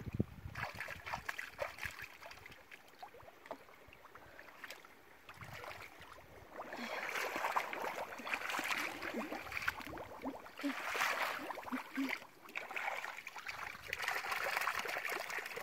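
Shallow muddy water sloshing and splashing as hands grope and scoop through a flooded paddy field for fish, with footsteps wading in the mud. The splashing grows louder in repeated stretches from about halfway through.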